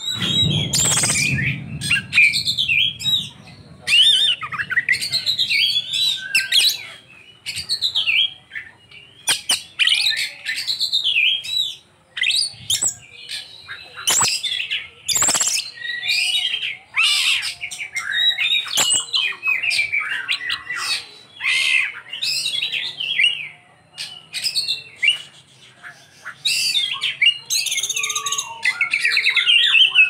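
Oriental magpie-robin singing a varied, near-continuous song of whistles, chirps and harsh squawking notes, rich in mimicked phrases of other birds.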